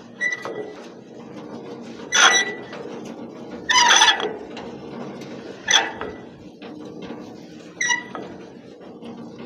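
Hand-cranked emergency drive of a locomotive turntable, its gearbox and chain turning the heavy bridge, squeaking loudly about every two seconds with each stroke of the crank over a steady low grinding rumble.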